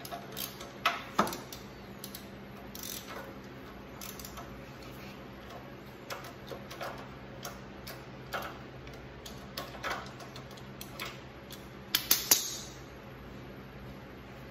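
Hand tools clicking and clinking on a small engine's spark plug: a socket wrench on the plug and pliers picking wood chips out of the plug well. Irregular light clicks, with sharper metal clinks about a second in and a quick run of three near the end.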